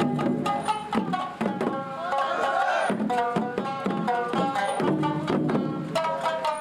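Festival dance music: a steady run of drum and percussion strikes under a pitched melody of held and gliding notes.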